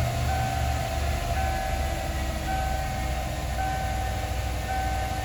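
A 1993 Ford F-150's 302 V8 running at fast idle just after a cold start, with a dashboard warning chime repeating about once a second over the engine.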